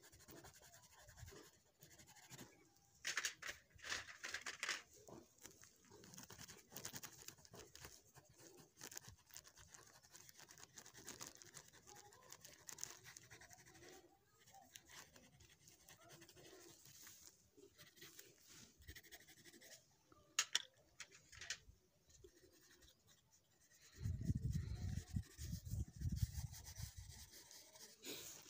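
Faint scratching of a green coloured pencil shading on paper, in short strokes, loudest about three to five seconds in. Near the end comes a low rumble lasting about three seconds.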